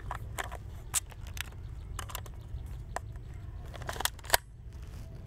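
Clicks and clacks of a K7G spring-powered airsoft shotgun being handled as its second BB shell is loaded: a dozen or so short sharp clicks at uneven intervals, with a louder pair near the end.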